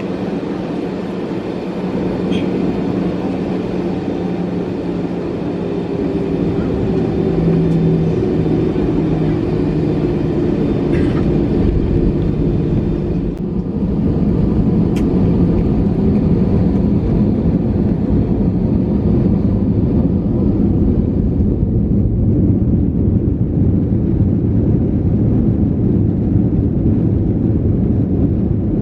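Airbus A321 cabin noise during take-off, its CFM56 jet engines at high power: a loud, steady rush with a low engine hum. It grows louder in steps, most of all about a quarter of the way in, and turns duller in the second half.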